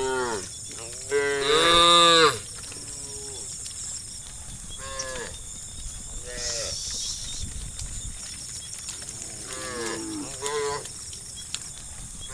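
Several cows mooing in turn. One long, loud moo comes about a second in, followed by shorter, quieter moos scattered through the rest, two of them close together near the end.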